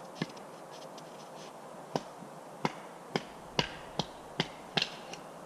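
Sharp wooden knocks as firewood is worked by hand: one, then a run of about seven, two or three a second, ending in a quick double knock.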